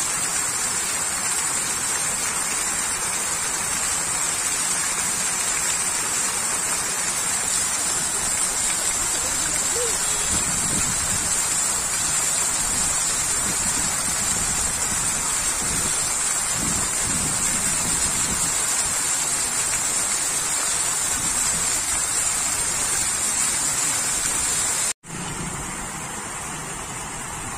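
Fountain jets spraying and splashing into a shallow pool: a steady rushing of falling water. Near the end it cuts out for an instant and comes back quieter.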